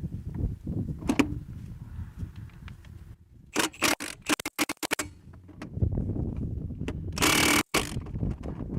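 Milwaukee M18 FUEL 1-inch cordless impact wrench hammering in short bursts against a rusted nut that won't budge: several quick bursts a few seconds in and one longer burst near the end, over a low rumble.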